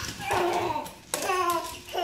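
A toddler's excited babbling: two short cries, each sliding down in pitch, the second one longer.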